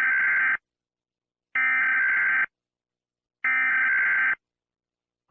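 Emergency Alert System SAME header: three bursts of digital data tones, each just under a second long with about a second's silence between. This coded header opens an emergency alert broadcast, carrying the alert's origin, event type and area.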